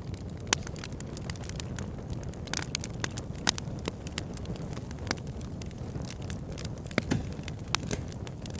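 Campfire crackling: irregular sharp pops and snaps, the loudest about half a second, three and a half and seven seconds in, over a steady low rumble.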